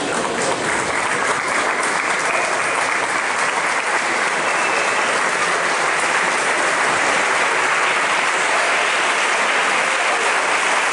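Audience applauding, a few separate claps at first quickly filling into steady, sustained clapping.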